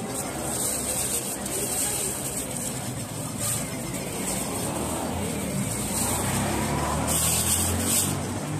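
Street traffic: cars driving past, with a low engine rumble that swells in the second half as a vehicle goes by close.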